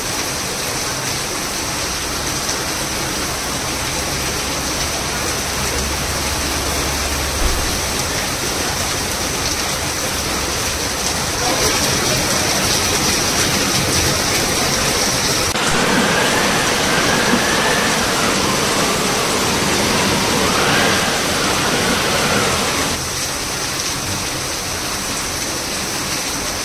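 Heavy rain pouring down on paved ground, a steady dense hiss of falling and splashing water. Partway through, a wavering pitched sound rises over the rain for about six seconds and then stops.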